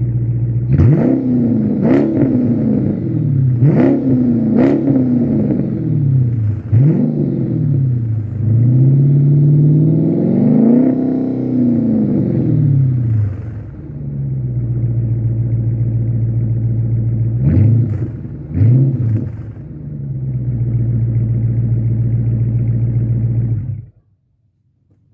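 2016 Dodge Challenger R/T's 5.7-litre Hemi V8 through steel-wool-packed Porter mid-mufflers with the rear resonators deleted, idling and being revved: a string of quick blips in the first seven seconds, a longer rev held up and let down around the middle, two more blips, then the engine is shut off near the end.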